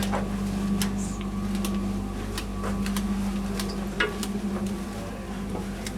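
A steady low machine hum, one constant tone with a deeper drone under it, with scattered light clicks and taps over it.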